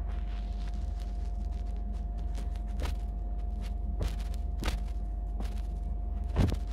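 Clothes being handled and shaken, with faint rustling and several short knocks, the loudest near the end. Under it runs a steady low hum with a faint high tone.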